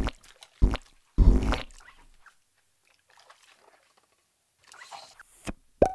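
Cartoon sound effects of a plastic dish-soap bottle being squeezed, squirting soap onto dishes. There are a few short squirts in the first two seconds, the longest about a second in, then two brief sounds near the end.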